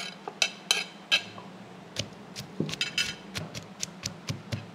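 A metal spoon clinking and scraping on a china plate as chopped garlic is pushed off into a mortar. Then a wooden pestle starts pounding in the mortar, a run of quick knocks, several a second, through the second half.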